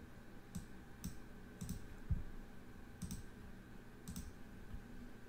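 Faint computer mouse clicks, about six of them, spaced half a second to a second apart.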